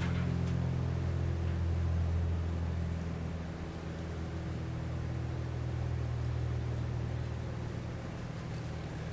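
A steady low machine hum, with no distinct knocks or handling sounds over it.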